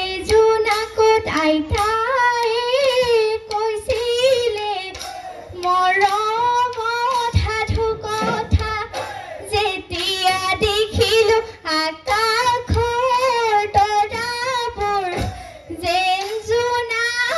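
A female voice singing a Bihu song, with long held notes that waver in pitch and short breaks between phrases. A few low thumps sound beneath the singing.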